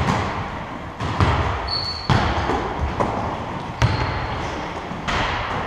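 Basketball bouncing on a court floor, dull thuds roughly once a second, each with a short echo, and one brief high squeak about two seconds in.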